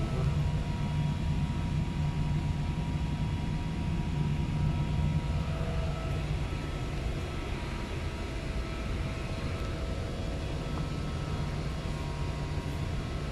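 Steady low drone of running machinery with a few faint steady tones over it, easing slightly about five seconds in.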